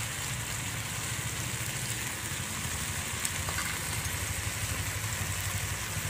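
Onion-and-spice masala frying in oil in a steel kadhai over a wood fire: a steady sizzle, with a steady low rumble underneath.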